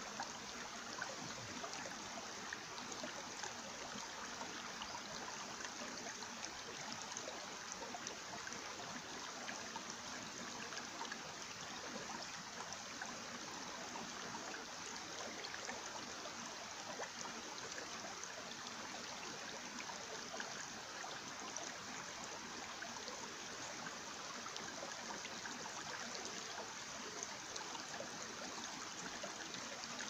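Shallow mountain stream running over rocks, a steady, even rush and trickle of water.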